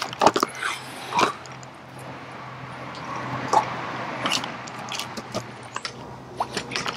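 Plastic kayak hull and gear bumping and scraping against a fallen tree trunk as the boat is hand-pulled underneath it: a scatter of short knocks and rubs, loudest about a second in.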